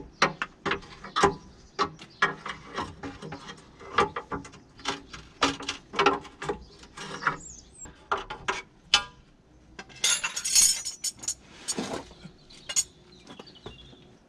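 Socket ratchet clicking in short, irregular runs as it undoes the subframe bolts under a car, with a louder, denser burst about ten seconds in.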